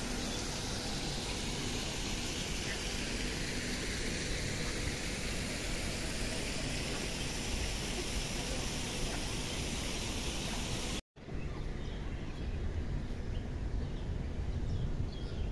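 Steady outdoor background noise, a continuous even hiss. About eleven seconds in it cuts out for a moment, then returns duller and lower, with a deeper rumble.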